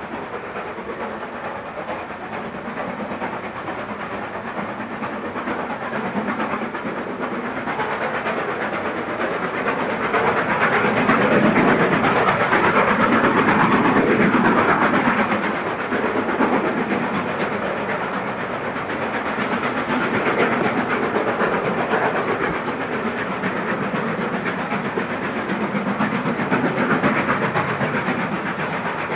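Steam locomotive hauling a train of coaches past, its exhaust and running noise growing louder to a peak about halfway through, then easing back.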